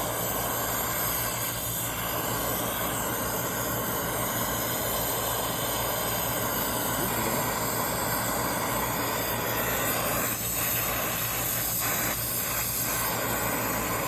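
Brazing torch flame hissing steadily while the replacement compressor's refrigerant lines are brazed in, with a low hum underneath.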